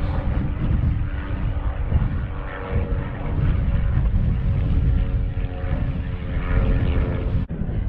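An aeroplane flying overhead, its engine a steady drone made of several held tones. Heavy wind buffeting on the microphone runs underneath it.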